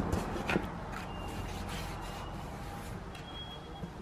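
Faint handling sounds of a plastic trim piece being held and rubbed on a board, with a couple of light taps, over a low steady room hum.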